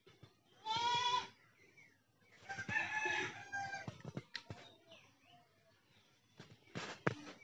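Indian ringneck parrot calling: a short squawk about half a second in, then a longer, wavering call about two and a half seconds in, with a few sharp clicks later.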